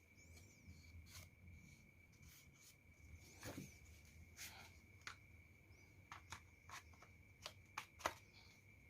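Near silence with faint scattered clicks and light taps from small parts being handled, the sharpest about eight seconds in, over a steady faint high-pitched tone and a low hum.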